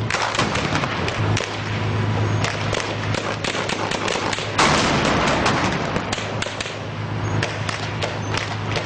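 Armoured vehicle engine running with a steady low hum, under many sharp cracks and knocks of gunfire and clanking metal. About four and a half seconds in, a louder rushing burst of noise starts and slowly dies away.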